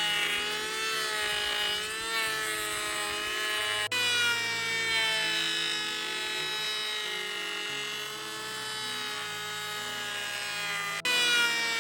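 A small electric power tool running with a steady whine, its pitch wavering slightly as the load changes, over quiet background music. The sound breaks off and resumes twice at edits.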